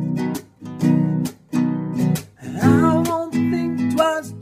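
Acoustic guitar strumming chords in a steady rhythm, each stroke cut short by brief muted gaps.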